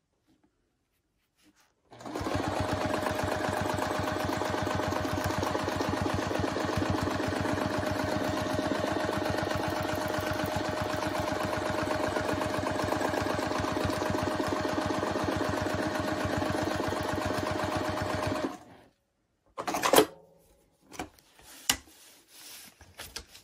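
Domestic sewing machine free-motion quilting at a steady fast speed, a constant motor whine over the rapid chatter of the needle; it starts about two seconds in and stops abruptly a few seconds before the end. After it stops comes one sharp knock, then a few light taps of handling.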